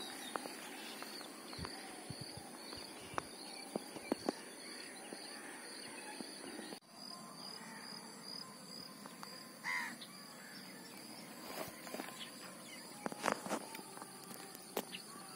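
Faint lakeside ambience: a steady high insect drone, scattered small clicks and taps, and a single short bird call about ten seconds in.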